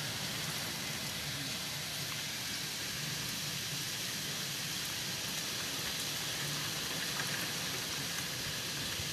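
Heavy rain pouring down, a steady even hiss with no breaks.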